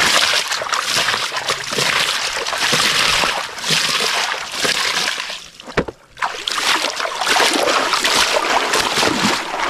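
Water splashing and sloshing as a plastic toy dump truck is dunked and rinsed in shallow muddy water, with a brief lull just past halfway.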